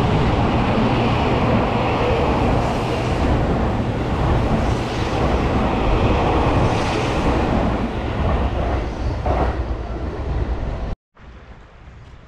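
Seibu Laview limited express train running through a station at speed: a loud, steady rush of wheel and rail noise that cuts off suddenly about eleven seconds in, followed by much quieter background noise.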